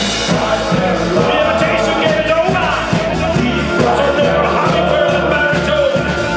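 Live rock band playing: drums keep a steady beat under bass and guitars, with no words heard.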